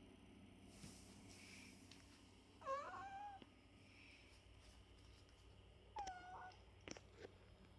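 A domestic cat meowing twice: a longer meow about a third of the way in, then a shorter one later, each falling in pitch at the end.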